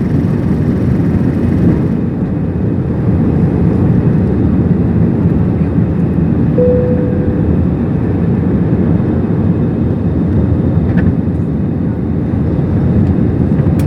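Steady, loud roar of an AirAsia Airbus A320-family airliner's jet engines and airflow during takeoff, heard from inside the cabin. A short steady tone sounds briefly about six and a half seconds in.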